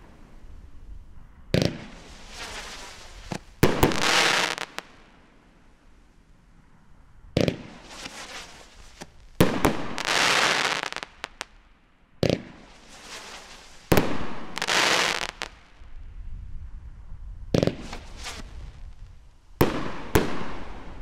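A 500-gram consumer fireworks cake firing shots one after another: around nine sharp bangs at irregular intervals, most followed by a few seconds of hissing, crackling glitter as the bursts fall away.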